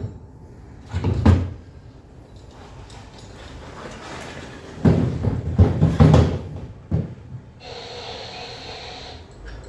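A thump about a second in, then a cluster of heavy knocks about five to six seconds in and one more just after. Near the end comes a short steady hum with a hiss, lasting about a second and a half.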